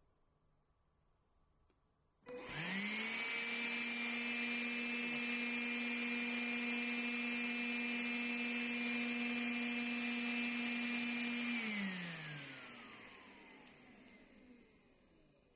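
Makita CL108 cordless stick vacuum, fitted with its standard filter, switched on about two seconds in: the motor spins up quickly to a steady whine with a rush of air. After about nine seconds it is switched off and winds down, its pitch falling as it fades.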